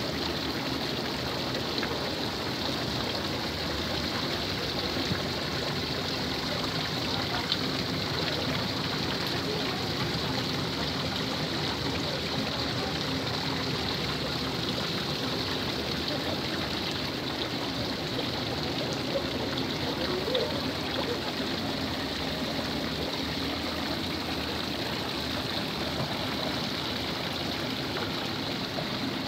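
Small garden waterfall pouring in thin streams into a koi pond, a steady splashing of water.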